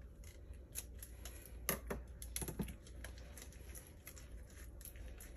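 Thin steel viscous coupler discs clicking lightly against one another as they are worked off the splined shaft and stacked, a scattering of small irregular clicks.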